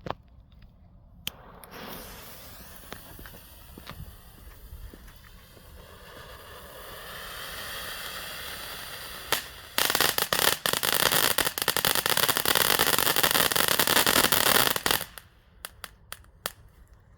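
Lesli Vegas Volcano firework fountain burning: a hiss that builds for several seconds, then about ten seconds in a loud, dense crackling for about five seconds that stops abruptly, leaving a few scattered pops.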